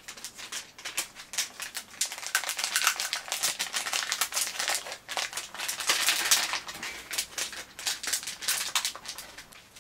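Crinkly toy packaging being pulled, twisted and bitten at by hand and teeth while being forced open: a dense, irregular run of sharp crackles and clicks, loudest about six seconds in.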